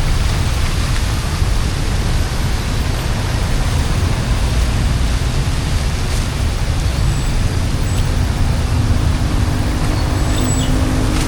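Steady, loud rush of heavy rain and flowing floodwater, with a deep rumble underneath. A faint low hum joins in during the second half.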